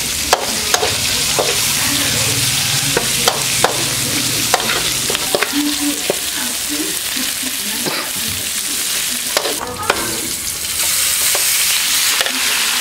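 Lemongrass, garlic and chillies sizzling in hot oil in a steel wok, stirred with a metal ladle that clicks and scrapes against the pan. Near the end the sizzle grows louder as raw duck pieces are tipped into the wok.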